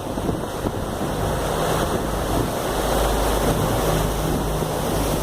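Wind buffeting the microphone aboard a moving harbour ferry, over rushing water and a steady low hum from the ferry's engine.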